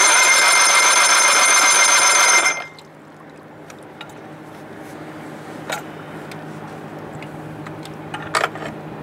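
1987 Johnson 70 hp outboard turned over by its electric starter for a compression test on cylinder two: a loud, fast-pulsing buzz and whine for about two and a half seconds that cuts off suddenly. A few faint clicks follow.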